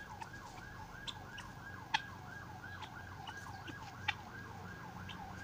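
Helmeted guinea fowl calling with a rapid, even run of short repeated notes, about five a second, with a few sharp clicks over it.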